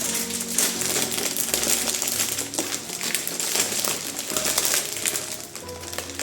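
Crinkling and light clinking of objects being handled, over soft background music with slow held notes.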